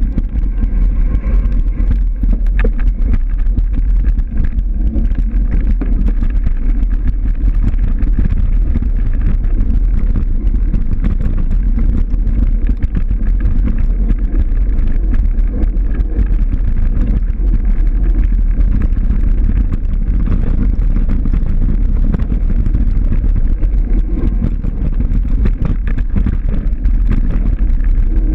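Wind buffeting the microphone: a loud, steady low rumble and rush, with no break through the whole stretch.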